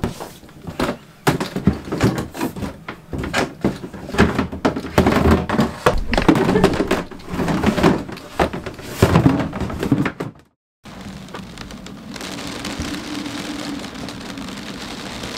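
Plastic bins knocking, thudding and scraping as they are handled and slid into a cabinet under a boat's galley counter. After a sudden cut about ten seconds in, steady rain falls on the boat's deck and windows, heard from inside the cabin.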